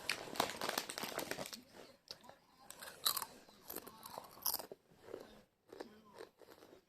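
Crisps being bitten and chewed close up. There is a dense run of crunching for about the first second and a half, then slower, scattered crunches.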